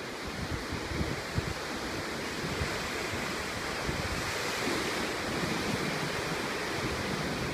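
Ocean surf breaking and washing over shoreline rocks, a steady rushing that swells a little a few seconds in, with wind buffeting the microphone.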